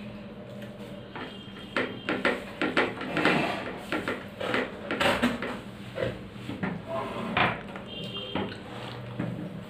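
Plate and bowl clinking and knocking as food is handled and eaten by hand: a run of short, quick clatters in the middle, over a steady low hum.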